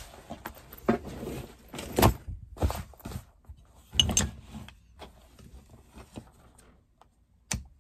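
A heavy leather jacket being handled on a wooden workbench: leather rustling, with several dull thunks as it is turned over and pressed flat, the sharpest about two and four seconds in.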